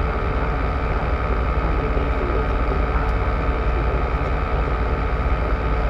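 Tour boat's engine running steadily: a constant low drone with no change in pace.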